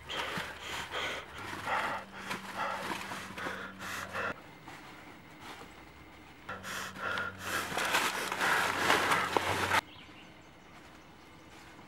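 Footsteps crunching and rustling through dry leaves and fallen branches as a person climbs over logs, in two stretches of a few seconds each; the second cuts off suddenly near the end.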